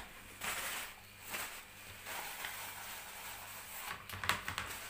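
Cooking oil heating in a frying pan over a gas flame: a faint, uneven hiss that swells now and then, with a quick run of small crackles or clicks a little after four seconds.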